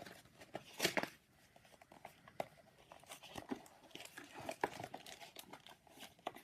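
Plastic packaging crinkling and being torn as it is pulled open: irregular crackles and snaps, with the loudest tearing about a second in.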